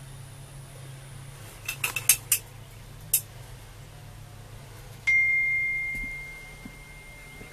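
A few sharp clicks about two seconds in, then a single bright ping about five seconds in that rings at one steady pitch and fades away over two seconds or so, over a low steady hum.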